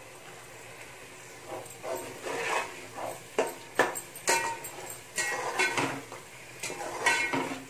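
Slotted steel spatula stirring coriander powder into a thick masala in a metal pot, scraping and clinking against the sides and bottom in irregular strokes with a brief metallic ring. It starts about a second and a half in.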